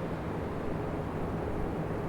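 Three electric oscillating fans running together: a steady whooshing rush of air with a low hum, fullest in the low range.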